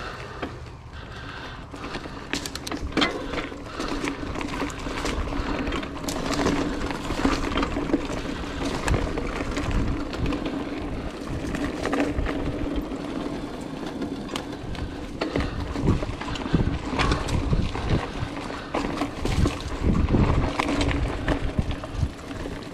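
Mountain bike (2019 Trek Roscoe 8 hardtail) riding downhill on a dirt singletrack: knobby tyres rolling over packed dirt and dry leaves, with frequent knocks and rattles from the bike over bumps and a low rumble of wind on the chest-mounted camera.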